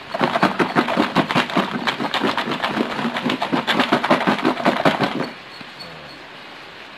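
Fruit bhorta being mashed and mixed with spices in a bowl: fast, rhythmic wet strokes, several a second, that stop about five seconds in.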